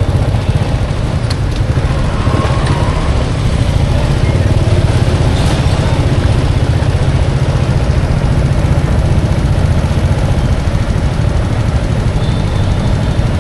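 Steady low rumble of motor traffic and vehicle engines.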